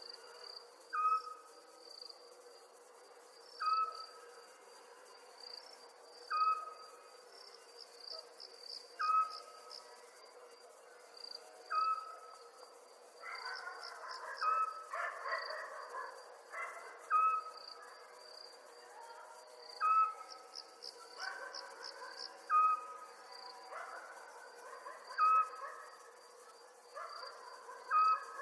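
Night chorus of crickets chirping steadily in a high pulsing trill, with a short piping call repeated about every two and a half seconds, the loudest sound, and a rougher chattering chorus swelling in twice.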